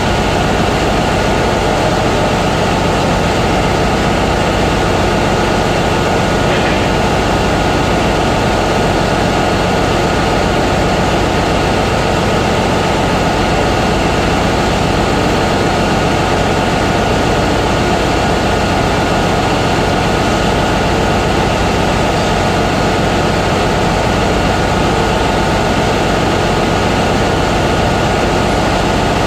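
Constant loud machinery drone of an engine room, an even rush of noise with steady humming tones that does not change.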